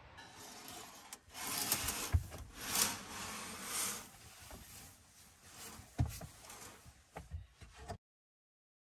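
Rustling and handling noises as someone moves about inside a camper van, with dull thumps about two and six seconds in and a few sharp clicks near the end, then the sound cuts off abruptly.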